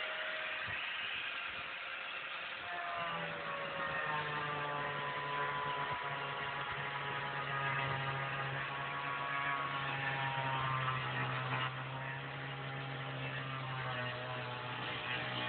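Handheld power tool motor starting up about three seconds in and running steadily while cutting into the wall, its pitch dipping slightly and recovering as it bites.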